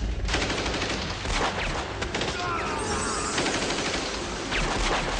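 Sustained gunfire: volleys of rapid, overlapping shots, with a few falling whines through the middle of the barrage.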